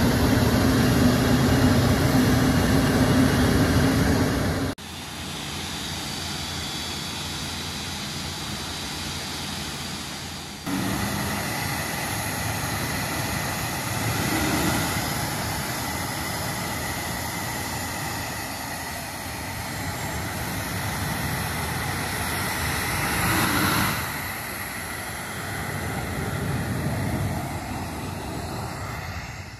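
Twin jet engines of a PZL I-22 Iryda trainer running on the ground, a steady rumble with a thin high whine over it. The sound drops abruptly about five seconds in and comes back louder about eleven seconds in.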